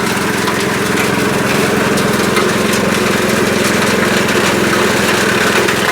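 Grass chopper (forage chopping machine) running steadily with an even, fast machine hum while grass is pushed in through its rear feed and chopped.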